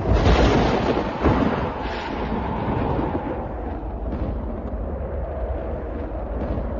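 Thunderclap hitting suddenly, with a second crack about a second in, then a long rolling rumble of thunder.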